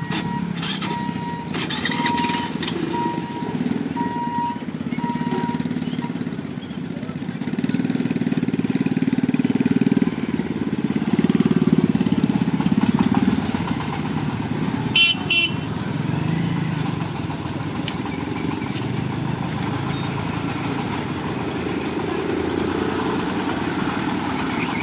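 Motorcycles, scooters and an auto-rickshaw running and pulling away over a railway level crossing, their small engines a steady mix that swells and rises in the middle. A repeated electronic beep sounds for the first several seconds, and a horn gives a quick double toot about halfway through.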